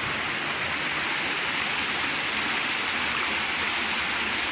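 Storm runoff rushing in a steady cascade down a flight of concrete steps that it has overflowed after a heavy hailstorm.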